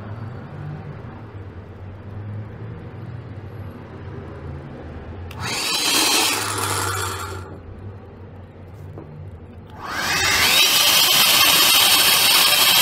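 A small high-speed motor spinning up twice with a rising whine. The first run starts about five seconds in and stops after about two seconds. The second, louder run starts near ten seconds in and settles into a steady whine.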